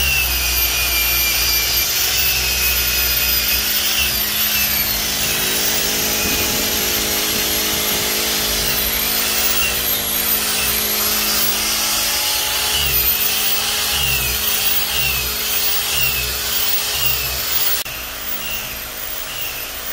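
Corded drill with an 80-grit Diablo sanding disc running against a hypalon inflatable-boat tube, grinding off old glue so the rubrail can be reglued. The motor whine dips in pitch repeatedly as the pad is pressed on, and the sound drops in level near the end.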